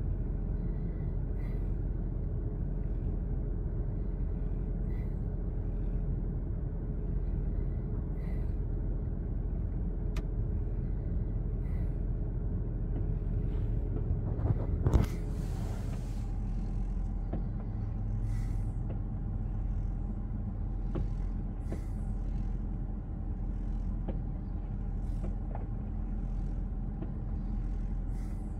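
Steady low outdoor rumble with faint ticks every second or two, broken about halfway through by a single sharp bang.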